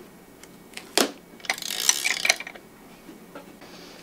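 Hand wrenches tightening the steel front axle nuts on a go-kart wheel assembly: a sharp metal clink about a second in, then a quick run of metallic clicking and rattling for about a second.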